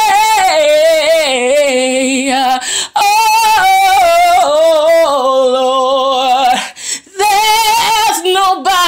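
A woman singing gospel, holding long notes with vibrato and sliding through runs, with two short breaks for breath, near 3 s and near 7 s.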